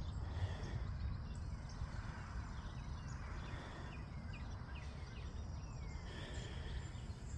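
Songbirds chirping and whistling at dawn, many short calls and a few falling notes, over a steady low rumble.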